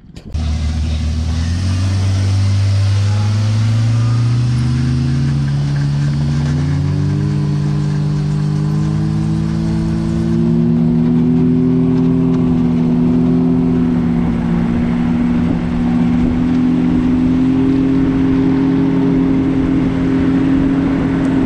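Side-by-side UTV engine pulling away and rising in speed over the first several seconds, then running steadily at cruising speed, over a constant rush of road and wind noise.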